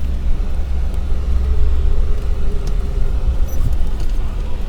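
Car engine running steadily with a low rumble of the vehicle driving along.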